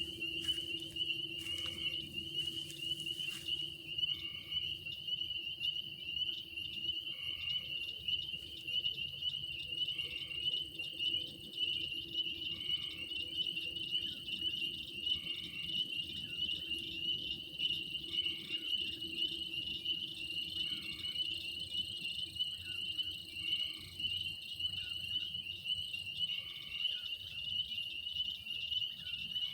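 Night chorus of crickets, a steady high-pitched pulsing trill. A shorter, lower call repeats about every two and a half seconds, and a few faint ticks come in the first few seconds.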